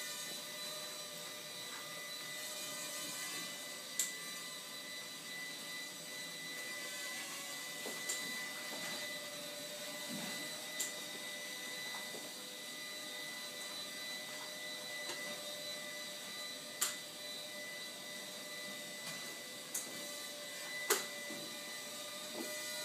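Walkera Ladybird V2 micro quadcopter's small electric motors whining steadily, with a few sharp clicks scattered through.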